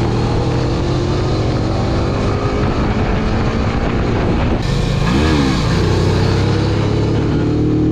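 Moto Morini X-Cape 650 parallel-twin motorcycle engine running at a steady cruise on a paved road, with wind and road noise rushing over the microphone. About five seconds in, the engine note briefly rises and falls.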